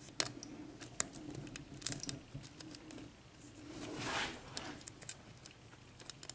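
Light, irregular metallic clicks and scrapes of a lock pick working the pin stacks of a Schlage 6-pin cylinder lock, as each pin is checked. A soft rushing swell rises and fades about four seconds in.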